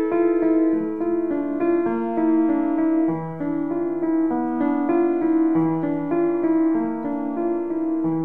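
Piano improvisation: an unhurried melody of held notes over low bass notes that change every couple of seconds.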